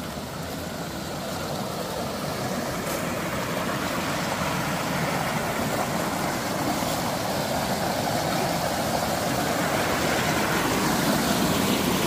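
Mountain stream rushing over rocks: a steady noise that slowly grows louder.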